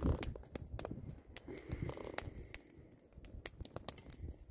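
Wood campfire crackling, with frequent sharp pops and snaps.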